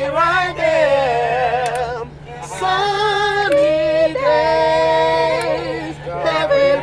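A small group of young men singing a cappella, unaccompanied, in a smooth R&B style, with long held notes and vibrato in the second half and a short breath-pause about two seconds in. A steady low hum runs underneath.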